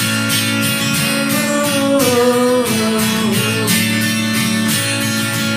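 Acoustic guitar strumming a steady rhythm, playing out the instrumental ending of a country song.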